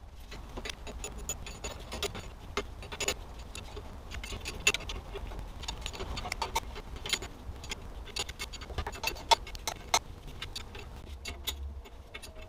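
Coil spring compressor being fitted to a strut's coil spring: irregular metal clicks, clinks and knocks as its hooks and threaded rods are set against the coils, a few sharper knocks in the middle.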